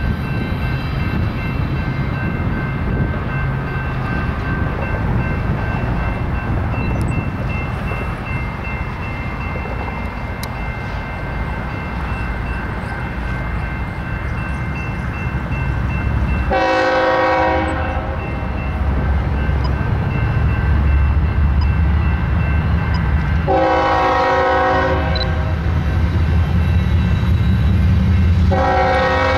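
BNSF diesel locomotives leading a double-stack train rumble steadily as they approach, growing louder, and the lead unit sounds its air horn three times in the second half: two long blasts about seven seconds apart, then a third still sounding at the end.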